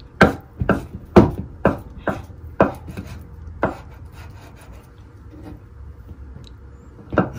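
Knife chopping food on a wooden cutting board: a run of sharp strokes, about two a second, for some four seconds, then a pause and two more quick strokes near the end.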